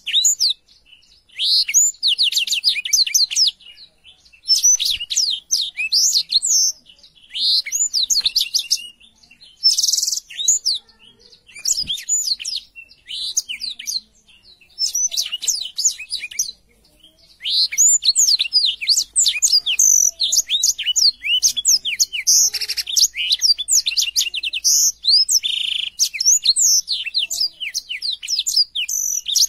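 Black-throated canary (blackthroat, Crithagra atrogularis) singing: fast, high twittering phrases of a second or two separated by short pauses, then from a little past halfway a long unbroken run of song.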